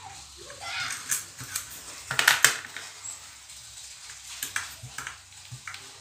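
Metal clicks and clinks of parts being handled and taken off a ceiling fan motor's hanger bracket by hand, with a sharper cluster of knocks a little past two seconds in.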